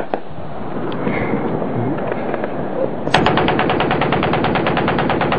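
Machine gun firing one long sustained burst, about a dozen rounds a second, starting about three seconds in. Before it, a steady noisy din of the firefight.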